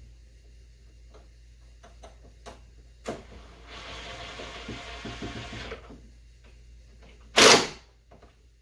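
Hand work with a Phillips screwdriver, fitting a screw and washer into the end of a workbench vise screw: scattered small clicks, a knock, then about two seconds of scraping as the screw is turned. One loud, short knock comes near the end.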